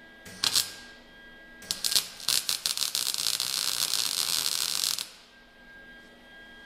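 Electric arc welding: a short burst of crackling arc about half a second in. Then the arc sputters a few times as it strikes and settles into a steady, fast crackle for about two and a half seconds before it cuts off.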